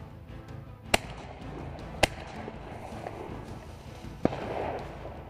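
Three shotgun shots at ducks, about a second in, a second later, and a couple of seconds after that, over background music.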